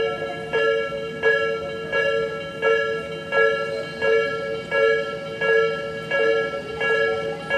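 Japanese railway level-crossing warning bell ringing, a clanging tone about every 0.7 s, which means the crossing is closed for an approaching train.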